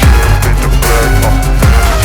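Background rap music without vocals: heavy bass and deep kick drums that drop in pitch, about one every second and a half.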